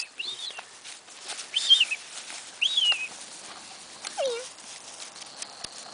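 Seven-week-old Doberman puppy giving four short, high whines or yips spaced through several seconds, the last one lower and sliding down in pitch.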